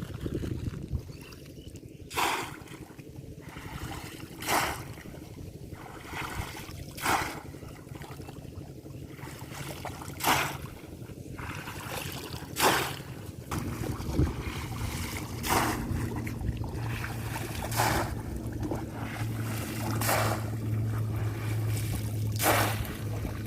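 Water splashing in short slaps about every two to three seconds, as a bamboo polo fish trap is plunged again and again into shallow water. About halfway through, a steady low motor hum joins underneath.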